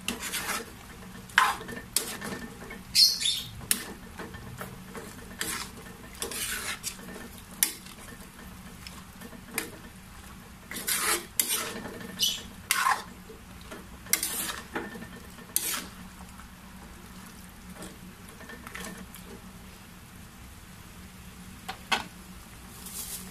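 A metal spoon scraping and clinking against a frying pan as chunks of pork and carrot in tomato sauce are stirred, in irregular strokes that come often for the first two-thirds and only now and then after. Underneath, a faint steady sizzle of the sauce cooking.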